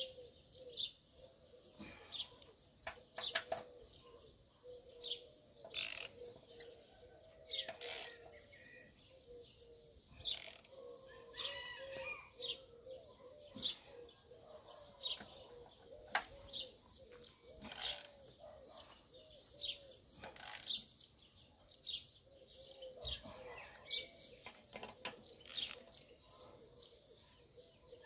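Small birds chirping in short, repeated calls over a low, wavering cooing of pigeons that runs throughout.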